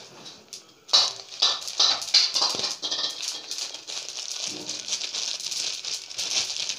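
Sesame seeds and peanuts crackling as they dry-roast in a hot aluminium kadai. A dense run of tiny pops and ticks starts about a second in, with a few sharper snaps early on.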